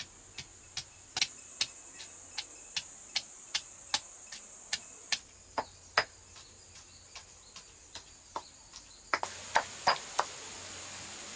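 Stone pestle pounding in a stone mortar, crushing ingredients into a paste: steady, evenly spaced knocks, about two and a half a second, with a few louder, closer knocks near the end.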